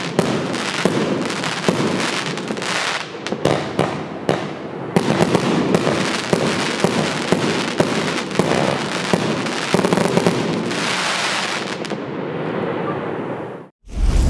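80-shot fireworks cake (Evolution Fireworks 'Snowstorm') firing a rapid, nearly continuous run of shots and bursts. It cuts off abruptly just before the end.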